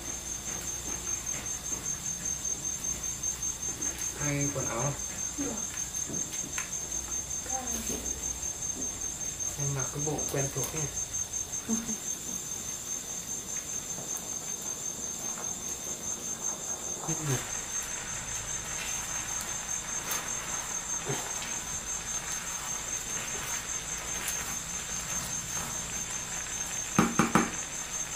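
Insects chirring in a steady, fast-pulsing, high-pitched trill, with a few sharp knocks near the end.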